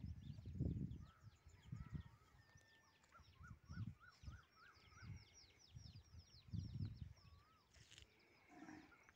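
Birds chirping, many quick high descending chirps, with a short run of lower repeated notes a few seconds in. Several dull low thumps of footsteps on dry ground come and go under the birdsong.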